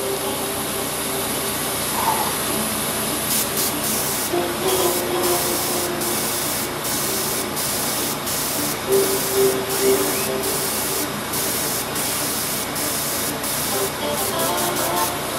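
Airbrush spraying paint with a steady hiss of air, broken by many brief gaps from about three seconds in.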